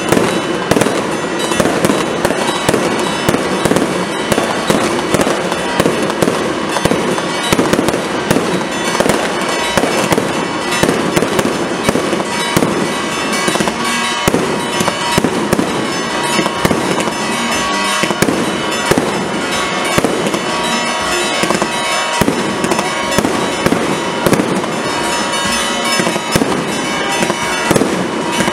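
Firecrackers going off in a rapid, unbroken crackle, with music underneath.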